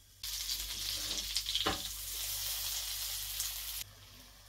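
Butter sizzling and crackling in a nonstick frying pan. The sizzle starts just after the beginning and cuts off abruptly about four seconds in.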